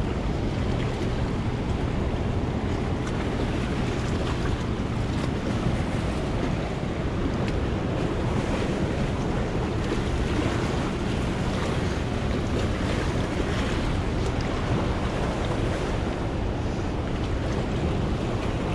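Steady rush of fast-flowing river water in the tailwater below a dam, with wind noise on the microphone.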